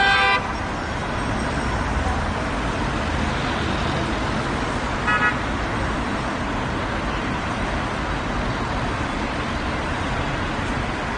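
Steady road traffic noise with two short car horn honks, one at the very start and one about five seconds in.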